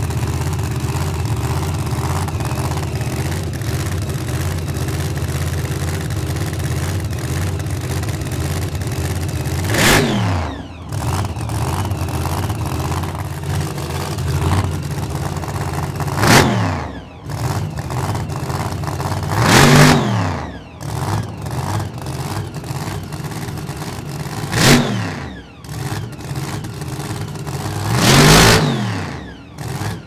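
A 400-horsepower muscle car engine idles steadily for about ten seconds, then is blipped up and back down five times, a few seconds apart.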